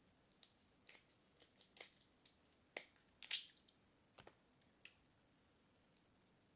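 Crab leg and claw shells being snapped and cracked open by hand: about ten sharp, irregular cracks and clicks, the loudest a little past three seconds in, then they stop.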